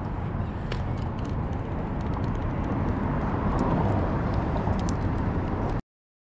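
Steady wind rumble buffeting an action-camera microphone, with a few small clicks of hands working a fishing line and bait-rig hooks. The sound cuts off abruptly near the end.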